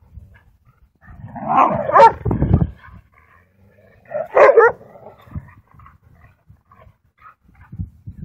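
Dogs vocalizing in rough play, a Siberian husky wrestling with another dog: a loud growling, barking outburst about a second and a half in, then a shorter bark-like call about four and a half seconds in.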